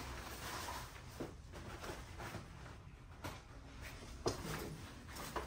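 Rustling of gear and bag fabric as a backpack is rummaged through by hand, with a few light knocks along the way.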